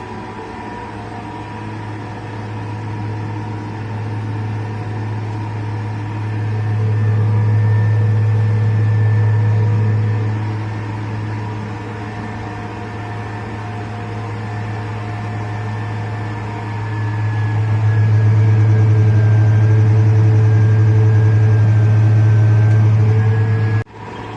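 Case 550 articulated tractor's engine running while pulling a scraper, heard from inside the cab as a steady low drone. It grows louder twice, most strongly near the end, then drops off suddenly.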